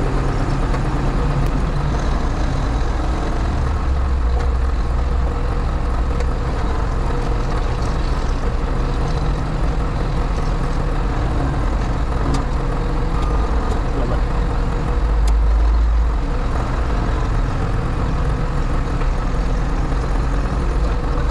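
New Holland backhoe loader's diesel engine running steadily as the machine drives, heard from inside its cab, with a brief rise in revs about fifteen seconds in.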